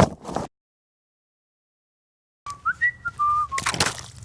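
A dead-silent gap of about two seconds, then a short high whistle-like tone that slides up and down, cut off by a loud noisy burst near the end.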